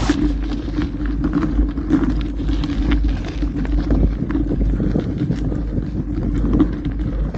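Mountain bike riding over a gravel forest road: the tyres crunch and the bike rattles with many small knocks, while wind buffets the microphone.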